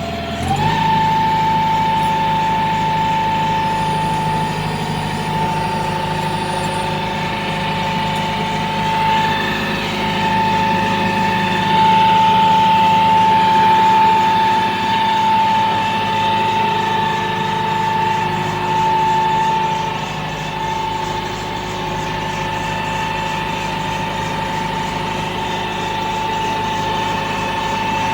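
Hitachi excavator's Isuzu 4HK1 four-cylinder diesel running. It picks up speed just after the start, then runs on steadily with a constant high whine over the engine note. It runs evenly, with the hard-starting and misfire fault cured.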